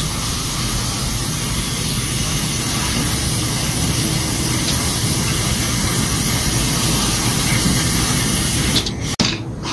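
Aerosol parts cleaner sprayed in one long, steady hiss into the oil-fouled valve area of a Honda GX35 four-stroke brush-cutter's cylinder head, flushing out overfilled engine oil. The spray cuts off about nine seconds in.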